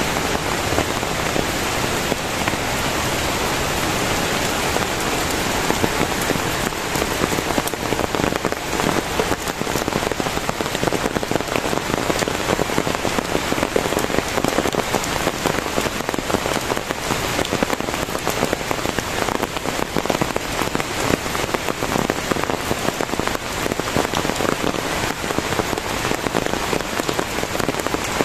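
Heavy tropical rain pouring down onto foliage and roofs: a dense, steady hiss full of countless individual drop hits.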